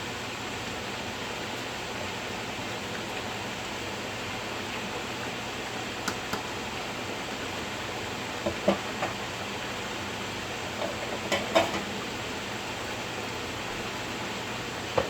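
A pan of pork menudo simmering on the stove: a steady hiss, with a few light knocks and clicks, most of them past the middle and one at the end.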